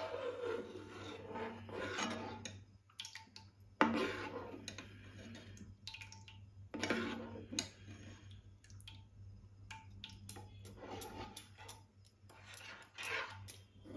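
Metal ladle stirring and scraping thick, sweetened milk in a non-stick kadai as it warms, with irregular clicks and knocks of the ladle against the pan over a steady low hum.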